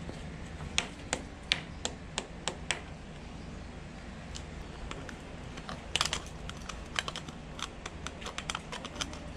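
Irregular sharp clicks and taps of a screwdriver, a plastic wall plug and a plastic helmet holder being worked against a wall while the holder is fixed on; a spaced run of clicks early, a cluster about six seconds in, and quicker clicking near the end.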